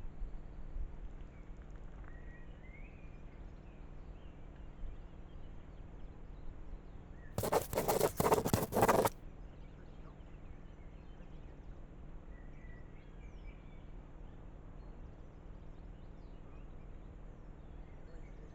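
Woodland ambience: a steady low rumble with a few faint bird chirps, broken about seven seconds in by a loud rushing noise lasting under two seconds.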